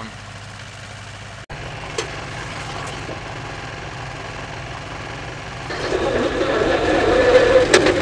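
Skid steer engine running, heard from inside the cab, steady at first and then growing louder about six seconds in as the machine works a bucket load of frozen dirt chunks.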